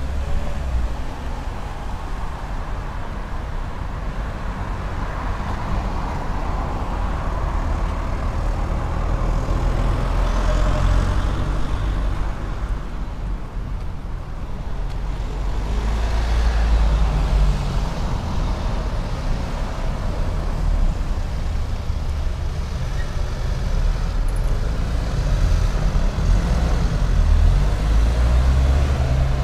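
Street traffic: cars passing on a town road, a steady low rumble with the sound of passing vehicles swelling about a third of the way in and again about halfway through.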